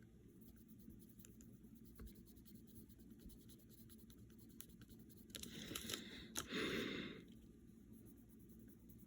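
Pencil scratching on a paper checklist as a box is ticked off: a short run of scratching strokes a little past halfway, with a sharp tick in the middle of it. Otherwise only faint light ticks.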